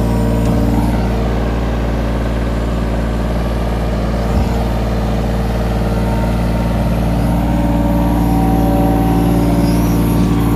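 Kobelco SK17SR mini excavator's diesel engine running steadily while the machine digs, with one brief knock about four seconds in.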